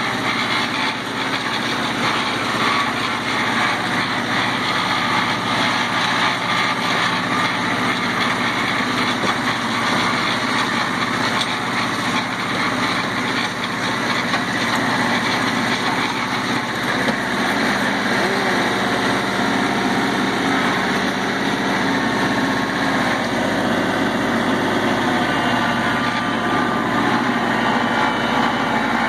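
Tractor engine running steadily, heard from the operator's seat as the tractor drives, its pitch shifting slightly about eighteen seconds in.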